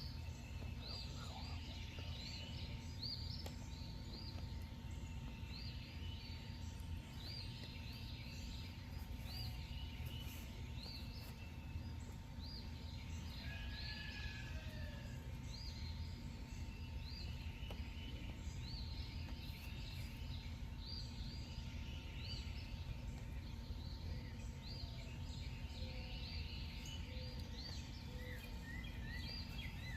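Night-time outdoor ambience: small animals repeating short, high, rising chirps about once a second over a steady low rumble.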